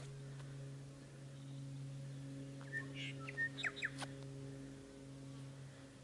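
A few short bird chirps and gliding whistles about three seconds in, over a steady low hum.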